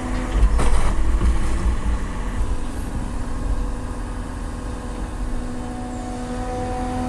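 Large excavator's diesel engine running, with a brief clatter of knocks about half a second in; the engine note eases in the middle and rises again near the end.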